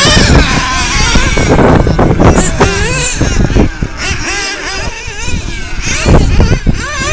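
Several nitro-powered RC off-road cars racing, their small two-stroke glow engines buzzing at high pitch and rising and falling again and again as the cars accelerate and brake around the track.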